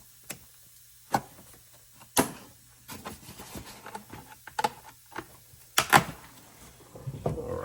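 Sharp snaps of cutters clipping through plastic packaging ties, with rustling of packaging between cuts; the loudest snaps come about six seconds in.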